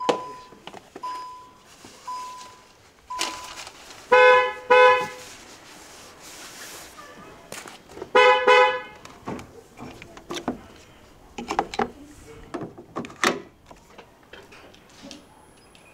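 An SUV's door-open warning chime beeping about once a second, then the car horn giving two short honks about four seconds in and two more about eight seconds in. After that come clicks and knocks from the charge port as a charging plug is pushed in.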